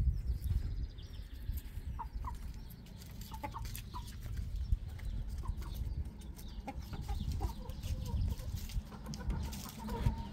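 Chickens clucking in short, scattered calls, over a steady low rumble.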